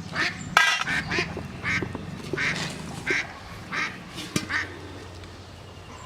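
A bird calling in a series of about eight short, harsh calls roughly every half second, stopping after about four and a half seconds. A sharp click or knock comes just over half a second in, and another about four and a half seconds in.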